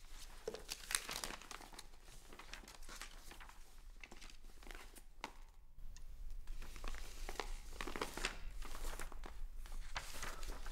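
Paper script pages rustling and crinkling as they are handled and turned, in short irregular strokes, with a brief lull about five and a half seconds in.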